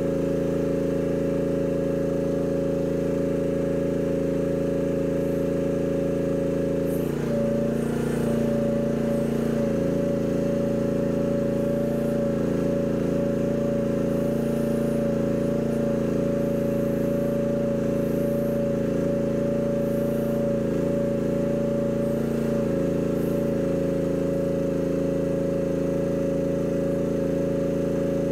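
Mini excavator engine running steadily with a strong steady whine. Its note thickens with added tones from about seven seconds in and settles back to its earlier sound about fifteen seconds later, as if the hydraulics come under load and then ease.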